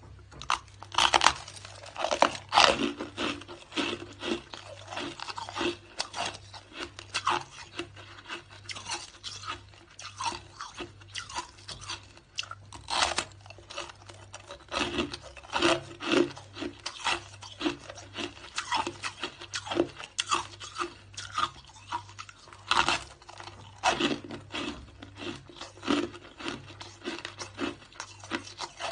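Hard, crusty shaved ice being bitten and chewed close to the microphone: a continuous run of irregular crunches, about two or three a second, with a few louder ones.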